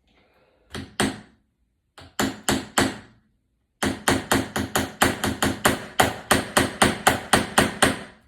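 Hammer blows on a small screwdriver held against the inside lip of an iPad's aluminium body, knocking out a dent: two blows, then three, then a steady run of about four blows a second from about four seconds in.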